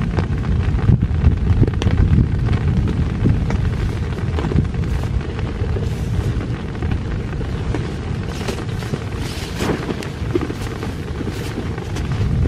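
Heavy rain on a nylon tent flysheet over a deep, steady rumble, with sharper taps and rustles in the last few seconds.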